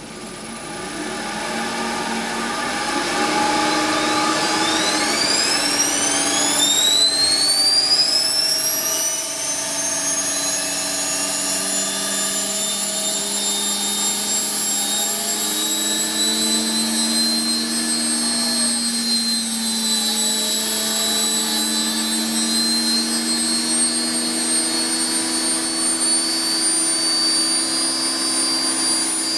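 Belt-driven Hodson and Gault 110 V DC generator set and the universal motor it feeds running up to speed: a high whine rises in pitch over the first several seconds, then holds steady with a steady lower hum beneath.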